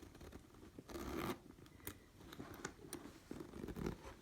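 Louis Vuitton Speedy Bandoulière 25 canvas handbag being handled: faint scratchy rustling and small clicks, with a louder rustle about a second in.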